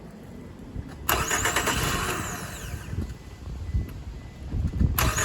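2005 Scion tC's four-cylinder engine being cranked by a newly installed starter motor: a crank begins suddenly about a second in and lasts about two seconds, then a second start attempt begins near the end. The starter turning the engine over shows the replacement starter working.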